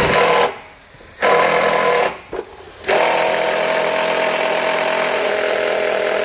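Cordless drill driving a self-tapping screw into a thick metal trailer frame rail. Two short runs, then a long steady run from about three seconds in, as the screw works slowly into the hard material.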